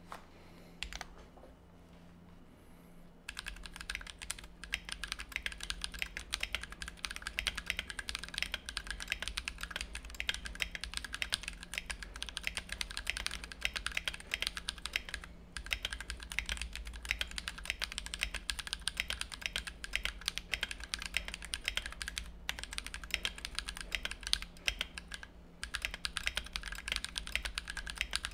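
Mechanical keyboard typed on fast and without pause: lubed, filmed Everglide Dark Jade switches in a Tofu 60 case with a brass plate and blank PBT OEM keycaps, a dense run of key clacks that starts about three seconds in.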